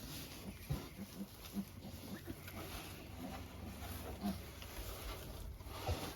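A young gilt in labour grunting in short, low grunts, a few a second, over a light rustling hiss.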